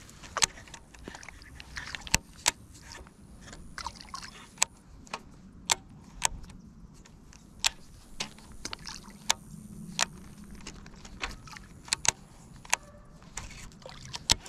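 Fishing rod and reel being handled while a lure is worked: a run of sharp, irregular clicks and ticks, one or two a second, over a faint outdoor hush.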